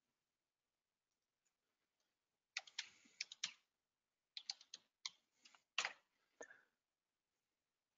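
Computer keyboard keystrokes: after a quiet start, a quick run of key taps about two and a half seconds in, then a second run a second later.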